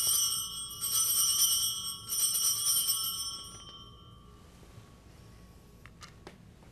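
Altar bells rung at the elevation of the consecrated host: high, bright ringing, shaken about three times a second apart, then fading out by about four seconds in.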